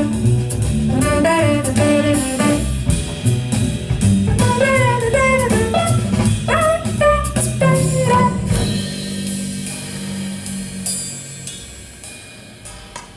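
Instrumental passage of a pop song: a melodic lead line over a drum-kit beat, with no singing. The music thins out and gets quieter over the last few seconds.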